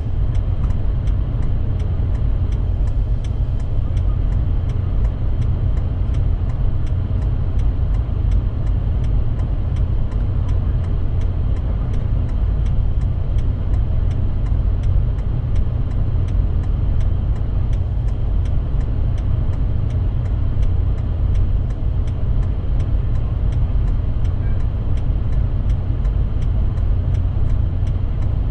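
A vehicle engine runs with a steady low rumble, with no revving and no sudden events. A faint, even ticking repeats about three times a second throughout.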